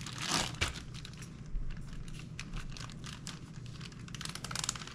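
Plastic zip-top bag crinkling as it is handled and its zipper pressed shut, with a burst of rustling just after the start and a quick run of small clicks about four seconds in.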